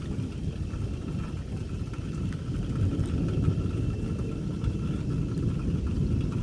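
Low rolling rumble of distant thunder, swelling a little about three seconds in.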